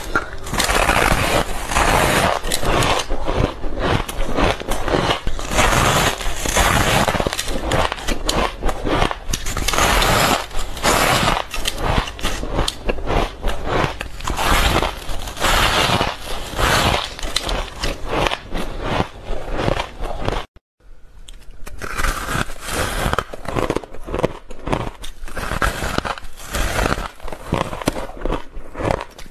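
Frost-covered, fluffy ice being bitten and chewed: a dense run of crunching and crackling. It breaks off for a moment about two-thirds of the way through, then starts again a little quieter.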